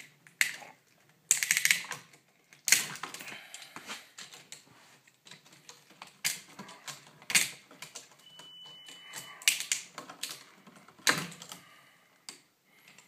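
Irregular clicks, taps and knocks of a screwdriver, wires and the metal and plastic of an old electrical outlet being handled as the wires are taken off it.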